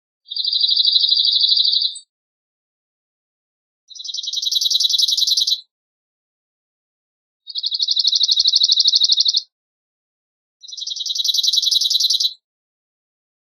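Cirl bunting singing its song, a rapid dry trill of identical notes on one pitch, given four times, each trill lasting about two seconds with short pauses between.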